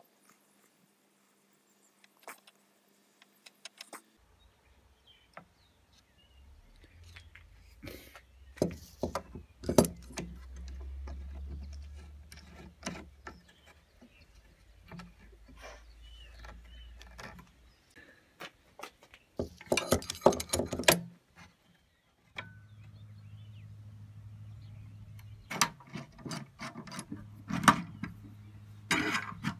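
Metal bar clamps being handled and tightened onto a wooden frame corner: scattered metallic clicks and knocks as the sliding jaw shifts on the bar and the screw is turned, with a burst of rapid rattling about twenty seconds in. A low steady hum comes and goes underneath.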